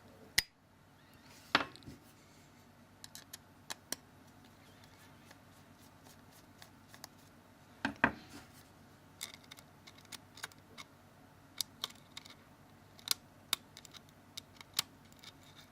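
Small hand tools clicking and tapping on the parts of a mobile phone being taken apart: scattered sharp clicks, a few louder ones among many faint ticks, as small screws are taken out.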